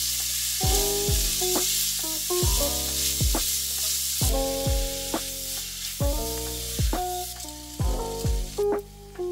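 Chopped onion sizzling as it fries in a stainless steel pot and is stirred with a spatula; the sizzle cuts off near the end. Background music with a steady beat plays throughout.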